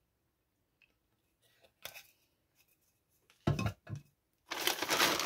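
Faint clicks of a metal tumbler and its plastic lid being handled, then two short knocks about three and a half seconds in as the tumbler is set down. Near the end a plastic mailer bag crinkles, the loudest sound.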